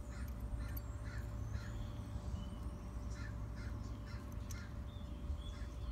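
Crows cawing faintly in the background over a steady low hum, with a few light metal clicks from a pick nudging valve keepers into place on a valve spring retainer.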